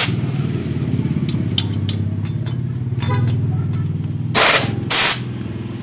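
Vehicle engine running steadily with a low, pulsing sound. Two short, loud hissing bursts come about half a second apart near the end.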